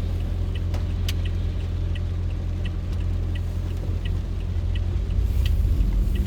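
Car's low rumble heard inside the cabin, with a light tick repeating about every two-thirds of a second; it grows a little louder near the end.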